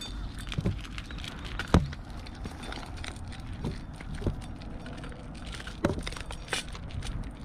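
Cats eating from metal bowls up close: irregular chewing and clicking of teeth and bowls, loudest as a sharp click about two seconds in, over a steady low background rumble.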